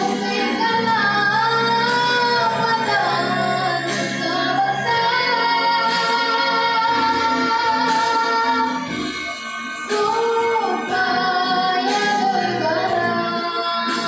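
A boy's high child voice singing a patriotic song with sustained, gliding held notes over a backing music track.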